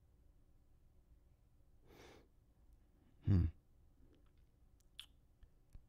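A man breathing out softly, then a short sigh about a second later, followed by a few faint clicks near the end.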